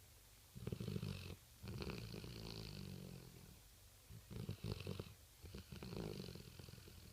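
Rottweiler snoring in its sleep: two breaths, each a short snore followed by a longer one, with quiet pauses between.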